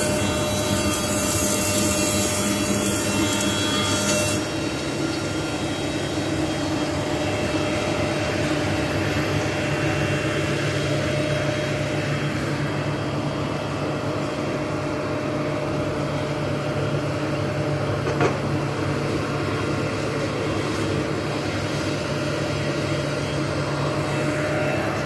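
A 630 double-sided production planer running steadily with a constant hum. For the first four seconds a harsher hiss rides on top and then stops suddenly; a single sharp click comes about 18 seconds in.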